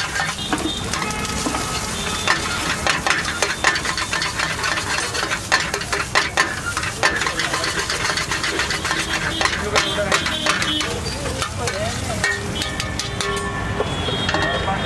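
Metal spatula scraping and clinking rapidly against a wok as egg bhurji is stirred and fried, over a steady sizzle. The scraping thins out near the end as the eggs are scooped out.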